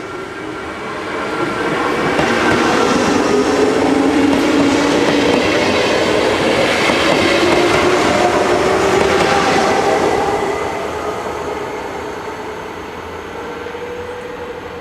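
NS SGMm Sprinter electric multiple unit passing close by, with wheels clattering over the rails and a motor whine that shifts in pitch. It builds up over the first two seconds, stays loud until about ten seconds in, then fades away.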